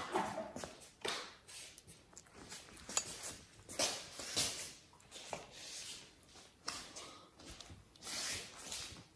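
Kittens pawing and nosing at a felt gift bag hanging on a wire playpen: irregular rubbing and scuffling, with a few sharp taps at uneven intervals.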